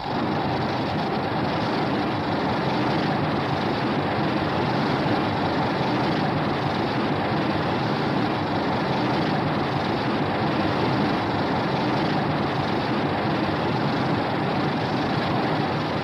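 Fan-made Shin Godzilla sound effect: a steady rushing noise with no clear pitch that starts abruptly out of silence and holds level throughout.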